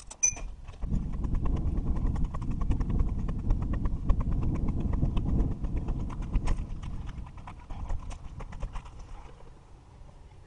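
Bicycle rolling over a rough dirt track: low rumble with a rapid run of clicks and rattles from the bike, dying down near the end as it slows.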